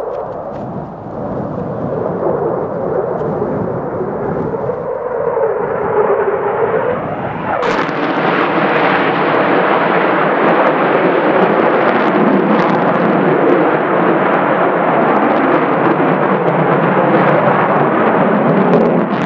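Jet roar of an F-35A fighter's single F135 engine, with afterburner lit, during a display manoeuvre. The roar builds with a drifting pitch, then about seven to eight seconds in it turns suddenly louder and harsher and holds there.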